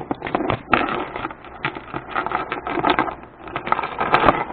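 Metal keys and tools on a titanium Keybar keychain clicking and rattling as it is handled, in quick irregular clicks.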